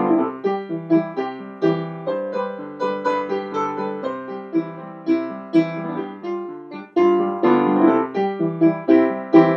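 Background music: piano playing an upbeat melody with chords, the notes struck and dying away, with a strong chord about seven seconds in.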